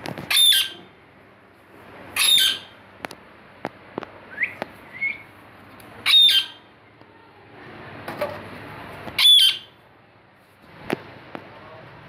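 Rose-ringed parakeet squawking: four loud, harsh calls spaced two to three seconds apart, with two short rising whistles between the second and third.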